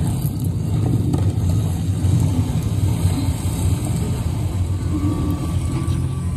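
A loud, steady low rumble with no clear pitch or rhythm, with a faint steady tone coming in near the end.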